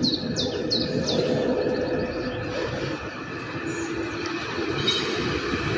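A songbird repeating a short, high, downward-sweeping chirp about three times a second, stopping about a second and a half in. Underneath runs the low rumble of an approaching electric regional train, growing toward the end.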